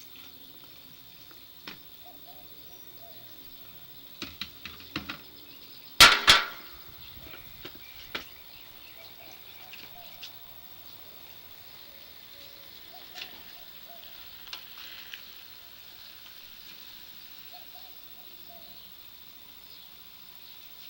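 Scattered clicks and taps of hand work on a riding mower, the loudest a pair of sharp knocks about six seconds in, over a faint steady high tone.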